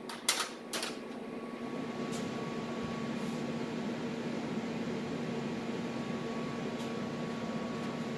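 Welding machine humming steadily over an even hiss, with a couple of clicks in the first second.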